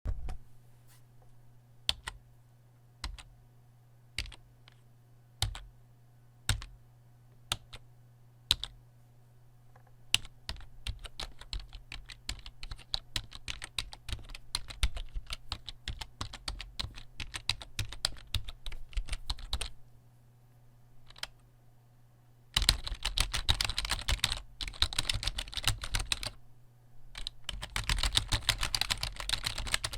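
Computer keyboard keystrokes at several speeds. First come single slow key presses about once a second, then steady typing from about ten seconds in. After a short pause, fast, dense typing starts about two-thirds of the way through. A faint low hum sits under the slower part.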